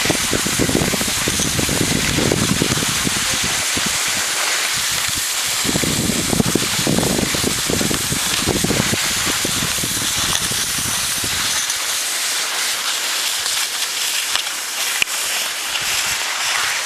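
Steady hiss of skis sliding over snow, with a low rumble underneath that drops away about twelve seconds in.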